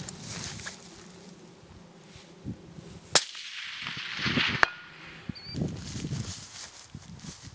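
A suppressed .300 Winchester Magnum rifle fires once, and the report rolls away over about a second and a half. Then comes a sharp distant clang from the steel target plate being hit at 400 yards, with a brief faint ring.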